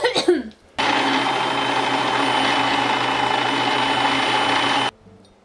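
Singer MX60 sewing machine's electric motor running at a steady high speed for about four seconds, starting under a second in and cutting off shortly before the end.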